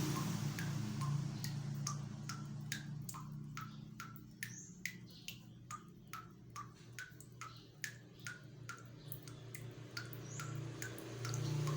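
A regular series of short, sharp clicking calls, about three a second, over a low steady hum that grows louder again near the end.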